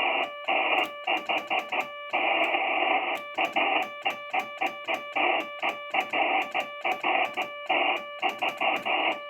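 Morse code from a Ten-Tec Omni-A transceiver: a tone keyed on and off in quick dots and dashes over a steady hiss of band noise.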